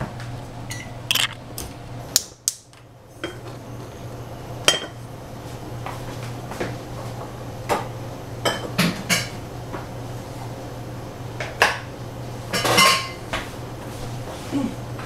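Kitchen utensils and dishes clinking and knocking now and then, a dozen or so separate knocks with a longer clatter near the end, over a steady low hum.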